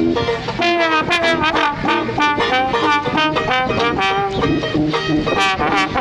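Small brass-and-banjo street band playing a lively tune: a trombone carries the melody over a tuba bass line, with a strummed banjo keeping a steady beat.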